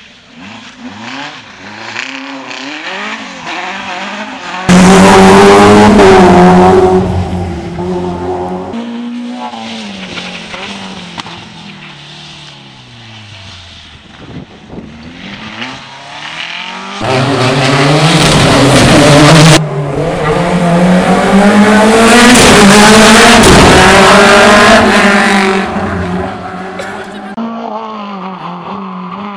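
Rally cars racing past one after another, engines revving hard, the pitch climbing and dropping with each gear change. Two passes are very loud: one starts suddenly about five seconds in, and a longer one runs from about seventeen seconds.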